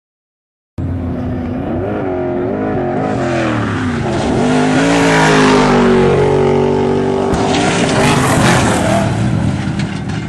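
Off-road desert race vehicle engine running hard as it passes, its pitch rising and falling. The sound cuts in abruptly about a second in.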